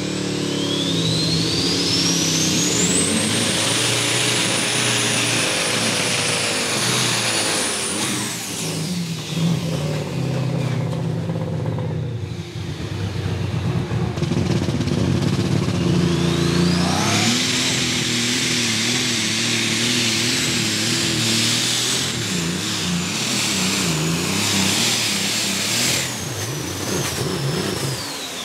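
Two pulling tractors making full-throttle runs one after the other. Each engine revs up with a high whine that climbs and then holds, and the first falls away about eight seconds in. The second run starts after a quieter lull, and its whine drops near the end.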